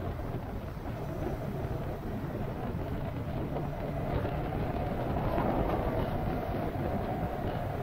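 A vehicle on the move: steady engine and road noise, with no break or change in pitch.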